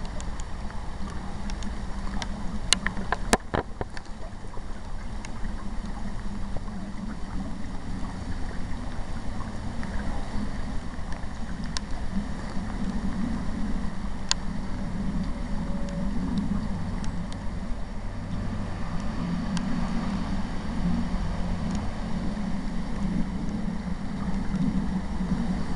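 Steady rain falling on garden foliage under a low, even rumble, with scattered sharp taps of drops; two louder taps come close together about three seconds in.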